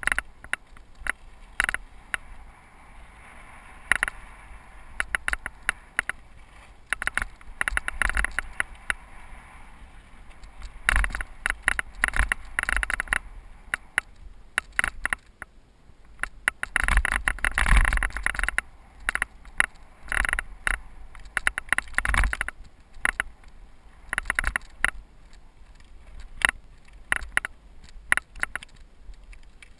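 Cyclocross bike clattering down a rough dirt singletrack: tyres crunching over gravel and loose stones, with the bike rattling in frequent sharp knocks over bumps, in louder runs about a third and two-thirds of the way through.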